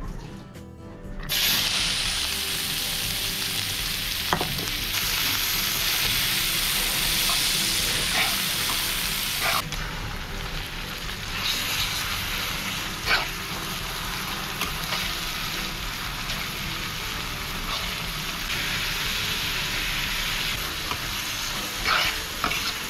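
Sliced onions and onion paste sizzling in hot oil in an aluminium karai, starting about a second in, with a metal spatula scraping and clinking against the pan now and then as they are stirred.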